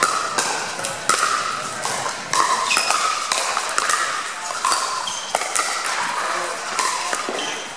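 Pickleball paddles hitting a hard plastic pickleball in a rally: a quick run of many sharp pops, with background chatter of voices under them.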